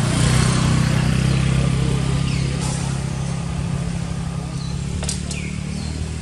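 A motor vehicle's engine running steadily, loudest near the start and slowly fading, with a few short high chirps falling in pitch.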